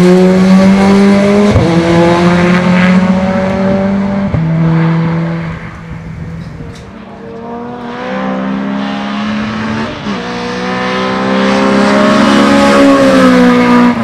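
Racing cars' engines at full throttle on a circuit, the engine note climbing and breaking off sharply a few times between gears. The sound dips for a couple of seconds about halfway, then a car comes up loud again near the end.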